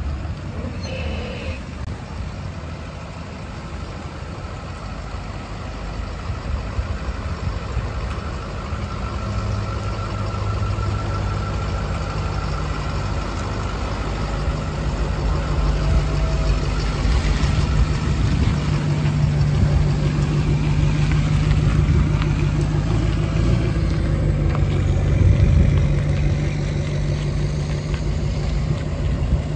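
Ford F-350 Super Duty truck engine running steadily, first idling and then driving off, growing louder through the second half and loudest about twenty-five seconds in.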